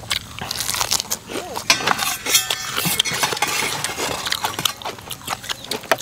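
Close-up eating sounds: crisp crunching bites of fresh lettuce leaf and chewing of a spicy seafood instant-noodle salad, with many small sharp mouth clicks throughout.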